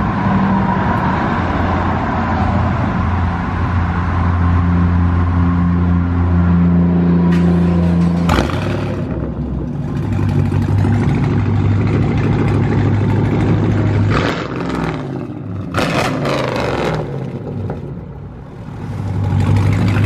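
2015 Chevrolet Camaro SS 6.2-litre V8 running through a straight-piped exhaust with the catalytic converters deleted, idling with the revs rising and falling a few times.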